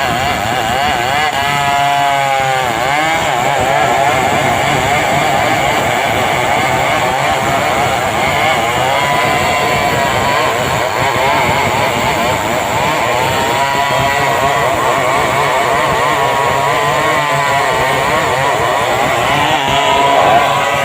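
Stihl 070 two-stroke chainsaw running at high revs while ripping a log lengthwise into boards. Its engine pitch wavers throughout and sags and recovers several times as the chain bites into the wood.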